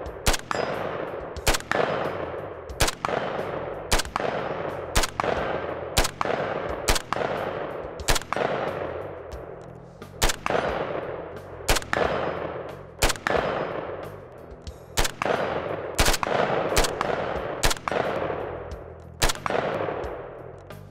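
HK-93 rifle in 5.56 fired in a steady string of single semi-automatic shots, about one or two a second, each trailing off in a long echo. Many shots are followed a fraction of a second later by the ring of a steel target being hit.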